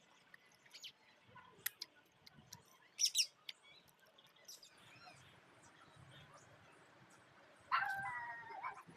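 Scattered small clicks, a sharp high chirp about three seconds in, and a whining animal call lasting about a second near the end.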